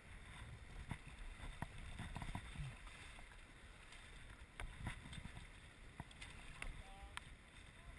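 Paddlers stroking from an inflatable whitewater raft: paddles splashing and knocking now and then against the raft and shafts over rushing river water, with a low rumble of wind on the camera's microphone.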